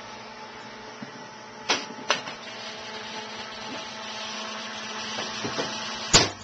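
Steady mechanical hum of a switched-on MIG welder, broken by sharp knocks of the spool gun being handled and pushed into the welder's front connector: two about two seconds in and a louder one near the end.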